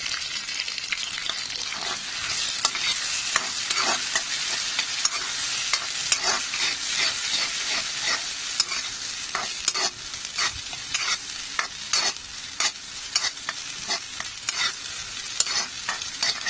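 Vegetables and ground sweet corn paste frying in oil in a kadhai, a steady sizzle, with the spatula scraping and clicking against the pan many times as the mixture is stirred.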